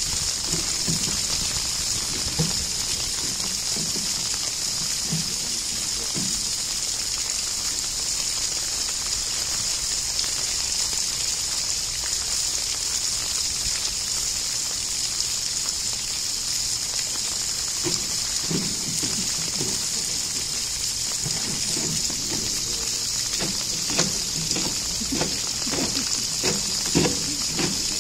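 Steady rush of running water throughout. From about two-thirds of the way in, a polar bear pawing and nosing a plastic polyethylene tank on concrete adds a run of light knocks and scrapes.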